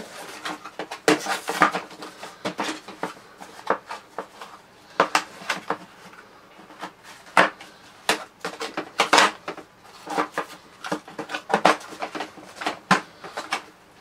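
Irregular clicks, knocks and short clatters of hard plastic as a Hoover Whirlwind upright vacuum's brush roll and belt are worked back into its floor head by hand.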